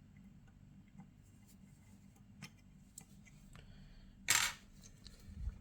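Faint clicks and taps of small objects being handled, with one louder short rasp about four seconds in and a dull low knock near the end.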